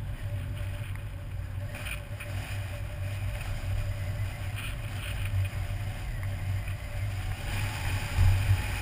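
Low, steady rumble of a car driving along a town road: engine, tyre and wind noise. It swells briefly louder near the end.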